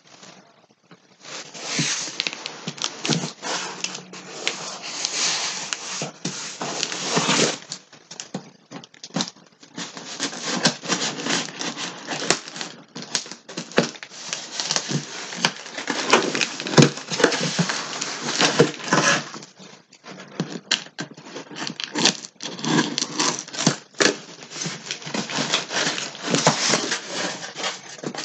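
A cardboard shipping box being opened and unpacked by hand: a busy run of scraping, rustling and crinkling of cardboard and packing, with a few brief pauses.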